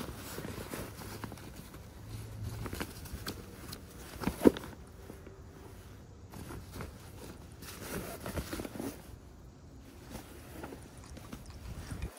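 Hands handling nylon and canvas gear bags, with irregular rustling of fabric and small clicks as a drawstring stuff sack is opened, and one sharp knock about four and a half seconds in.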